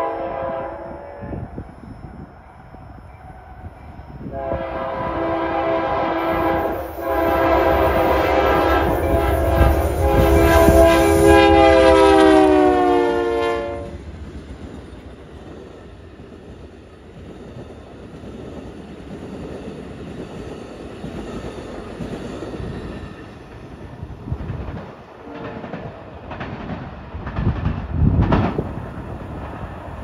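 Union Pacific GE diesel locomotive's horn sounding a short chord, then one long blast of about ten seconds whose pitch drops as the locomotive passes close by. It is followed by the rumble and wheel clatter of the passenger train going past.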